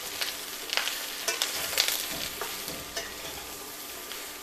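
Metal spatula scraping and clicking against a stainless steel kadhai as diced bottle gourd is stirred in hot oil, over a steady sizzle of frying. The clicks come irregularly, a few each second.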